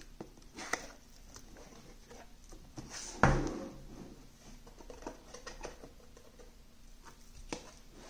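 Cardboard graphics-card box being opened and handled: light scrapes, taps and rustles, with one louder thump a little over three seconds in.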